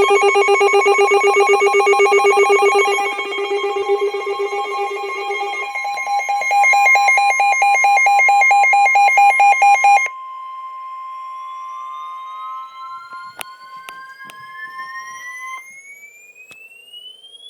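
Emergency Alert System alert tones on NOAA Weather Radio. A loud, rapidly pulsing electronic alert at several pitches stops about ten seconds in. A steady high tone near 1 kHz, the weather radio warning alarm, runs beneath it and continues alone for several more seconds, while a tone sweeps upward in pitch over the last several seconds.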